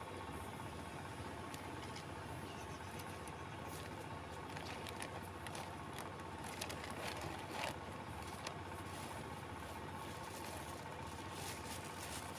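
Steady low background rumble with a faint constant hum, and a few brief rustles and clicks near the middle.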